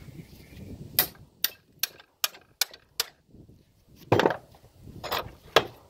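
Metal clicks and knocks from a Woods BK-7500 backhoe's hydraulic boom cylinder being worked apart in a bench vise. There is a quick run of six sharp clicks, about two or three a second, then three louder, longer knocks near the end.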